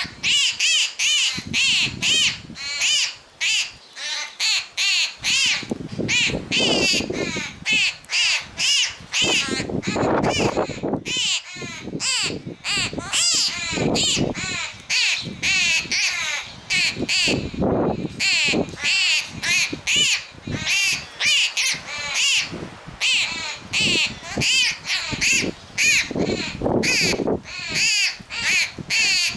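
A young sparrow begging for food: shrill, short calls repeated rapidly, two or three a second, without let-up.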